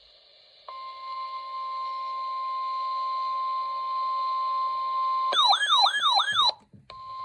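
Emergency alert attention signal: a steady single-pitched tone near 1 kHz, like the NOAA Weather Radio 1050 Hz warning alarm, starting about a second in. About five seconds in it gives way to a warbling, siren-like tone that sweeps up and down about three times a second for roughly a second, then cuts out briefly before the steady tone resumes.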